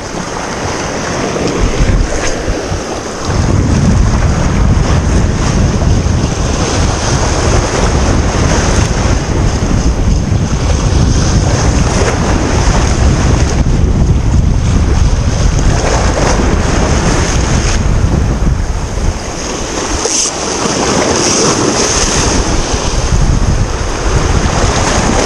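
Wind buffeting the microphone in a heavy low rumble, with waves washing over the rocks of the shore beneath; the rumble swells about three and a half seconds in and eases briefly near the end.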